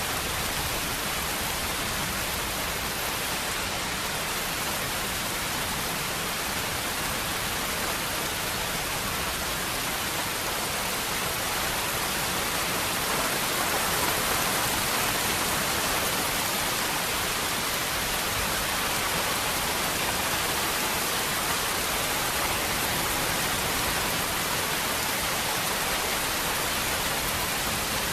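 Steady heavy rain, an even hiss with no separate drops or thunder standing out.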